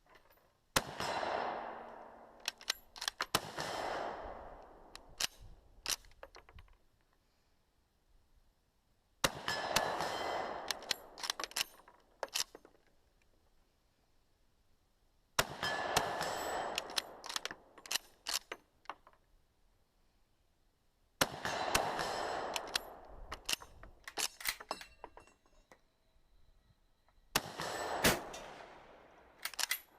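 War sound effect of gunfire: five separate bursts about six seconds apart, each starting sharply and dying away over a second or two, with scattered sharp metallic clinks after each one.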